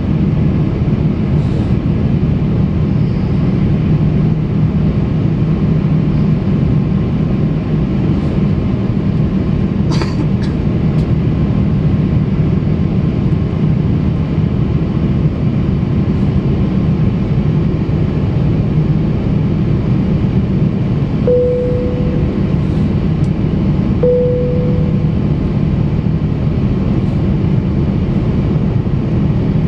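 Steady cabin noise of an Airbus A350-900 in flight, heard inside the cabin at a window seat: the rumble and rush of its Rolls-Royce Trent XWB-84 engines and airflow, with a low hum. A faint click about ten seconds in, and two short tones about three seconds apart about two-thirds of the way through.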